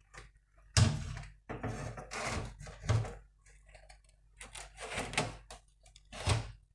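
An AIO radiator being handled and fitted into a PC case: a sharp knock about a second in, then several stretches of scraping and rustling as parts are moved against the case.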